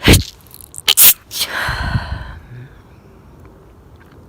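A woman sneezing several times in quick succession: one sharp sneeze at once, two more about a second in, then a longer, breathier one that fades out about two and a half seconds in.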